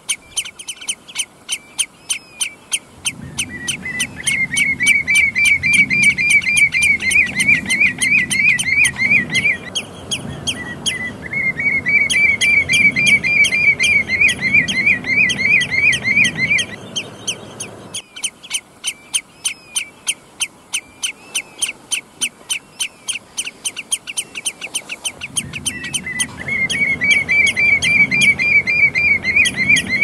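Common redshank calling: a fast, steady string of short, sharp piping notes. Three long bouts of a rapid, rolling, yodelling song are laid over them, and each bout stops abruptly.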